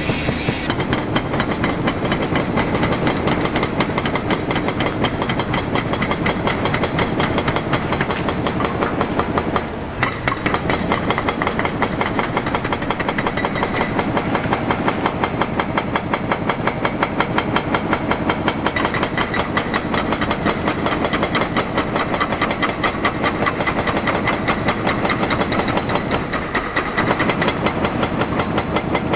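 Heavy diesel machinery running steadily nearby, with a fast, even clatter. It dips briefly about a third of the way in and again near the end.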